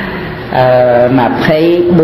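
A man's voice in a drawn-out, chant-like delivery, holding long steady tones after a short pause near the start.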